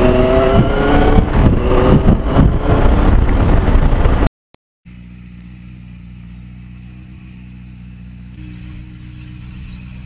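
Motorcycle riding at speed, its engine pitch rising as it accelerates, with wind rushing over the microphone. It cuts off about four seconds in, and a much quieter steady low hum with a faint high whine follows.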